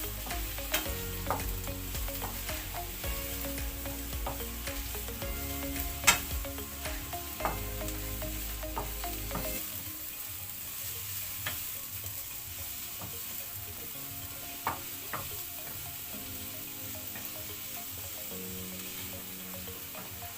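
Sliced mushrooms sizzling as they sauté in hot olive oil in a pan, with a utensil clicking against the pan now and then as they are turned; the sharpest knock comes about six seconds in.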